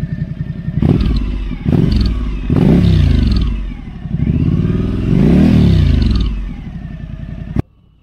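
2020 Suzuki V-Strom 1050XT's V-twin engine through a Dominator ST round slip-on silencer with no dB killer, idling, blipped twice, then revved up twice and let fall back to idle each time; the sound cuts off suddenly near the end. As the revs drop there is a slight hiss or jingle, like a whistle blown underwater, which the owner thinks a new exhaust that just needs breaking in.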